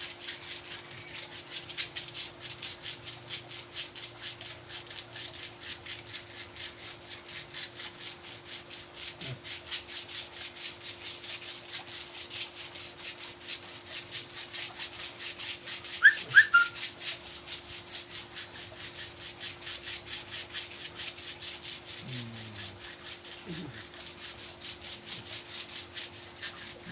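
Rhythmic rubbing strokes of a hand massage, about four a second and very even, over a faint steady hum. About sixteen seconds in, a brief high chirp of two or three quick notes.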